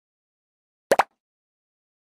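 Short edited-in sound effect: two quick taps in close succession about a second in, set against total silence.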